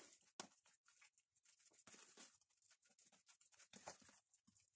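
Near silence, with a few faint clicks and scrapes from a spoon stirring raw chicken mince with egg and spices in a plastic tub.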